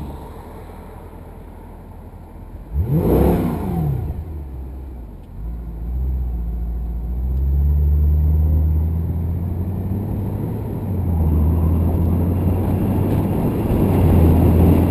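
Mercedes-Benz C63 AMG's 6.2-litre V8 idling quietly, then revved once about three seconds in, the pitch rising and falling in under a second. A couple of seconds later the car pulls away and accelerates, the engine note growing louder in steps.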